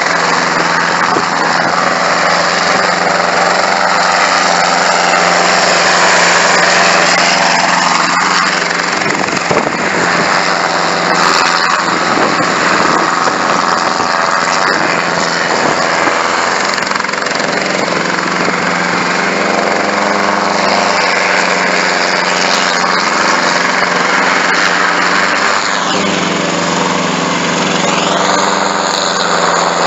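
Schweizer 300 light helicopter's piston engine and rotor running steadily as it hovers and manoeuvres low over the ground. Near the end the tone sweeps down and back up as it moves.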